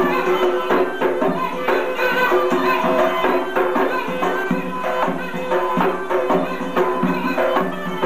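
Mizmar (reed pipe) playing a dance tune over a steady beat of hand-drum strokes.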